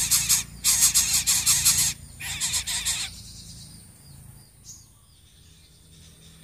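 Coucal chicks giving rasping begging calls: a fast, noisy pulsing in three bursts over the first three seconds, then quieter, with a faint chirp about a second and a half later.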